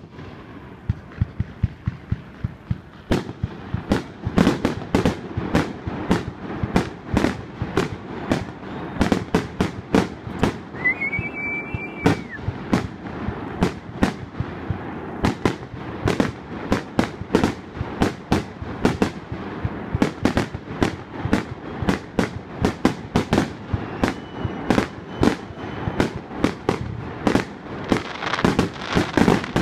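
Aerial fireworks shells bursting in a fast volley, many sharp bangs, often about two a second, with a rumble between them. A short whistle rises and holds about eleven seconds in.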